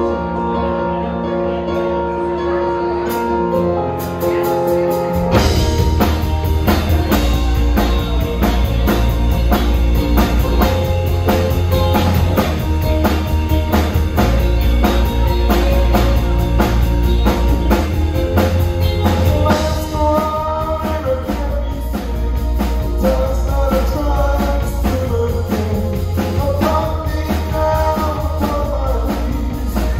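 Live rock band playing: held keyboard chords open, then drums, bass guitar and electric guitar come in together about five seconds in with a steady beat, and a woman's lead vocal enters around twenty seconds in.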